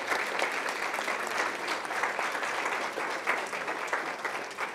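Audience applauding, many hands clapping in a dense patter that begins to thin out near the end.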